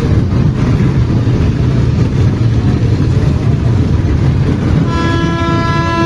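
Fairground ride din: a dense, steady low rumble of machinery. Near the end a steady, high horn starts sounding and holds.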